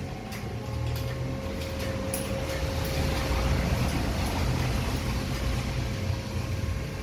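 Steady low rumble with a constant thin hum, and over it a few faint irregular clicks and creaks from the hand-pumped hydraulic jack of a 55-gallon drum lifter raising a loaded steel drum.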